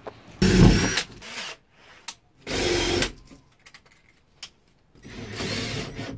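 Cordless drill drilling into a plywood panel on a van's back door, run in three short bursts with pauses between them; the first burst is the loudest.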